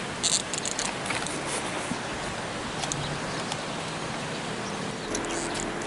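Steady outdoor noise of flowing canal water and distant traffic, with a few light clicks just at the start.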